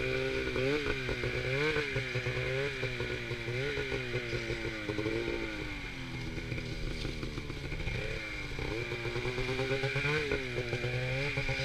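Polaris RMK two-stroke snowmobile engine revving up and down over and over as it pulls through deep snow, its pitch rising and falling about once a second and easing lower around the middle, heard from the rider's helmet.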